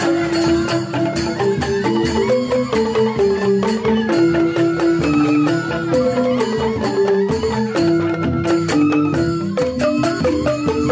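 Balinese joged bumbung gamelan playing: bamboo-tube xylophones (grantang) ringing quick interlocking melodic figures over kendang drum strokes, in a steady unbroken rhythm.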